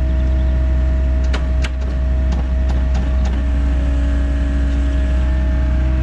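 Diesel engine of a compact excavator or similar machine running steadily under way, with a few sharp metallic knocks in the first half and a slight shift in its pitch about three seconds in.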